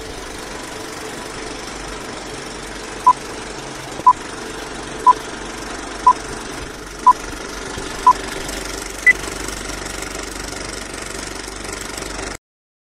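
Film-leader countdown effect: a film projector's steady mechanical rattle with a short beep once a second, six at one pitch and then a seventh higher. The sound cuts off suddenly near the end.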